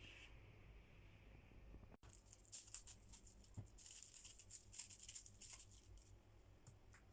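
Faint crackling rustle with many small clicks, starting abruptly about two seconds in and thinning out near the end.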